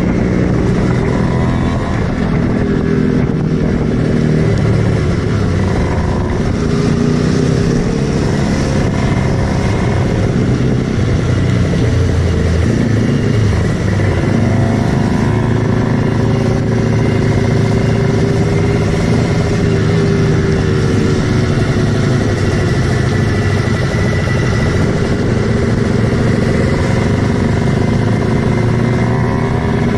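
Kawasaki Ninja 150 two-stroke single-cylinder engine running under way, its pitch rising and falling again and again as the throttle opens and closes.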